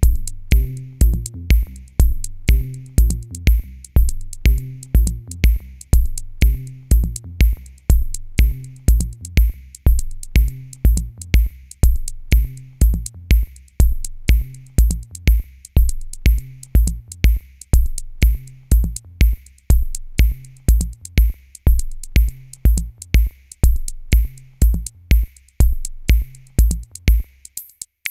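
Background electronic music: a drum-machine beat with a steady kick about twice a second over a bass line, the bass and kick dropping out near the end.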